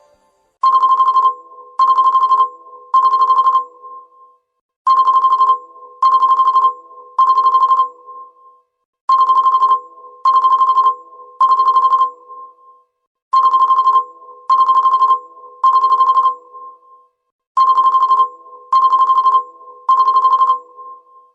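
Miyakomobile 1017 phone ringtone in the style of a telephone bell. It plays groups of three short trilled rings, and the group repeats five times about every four seconds.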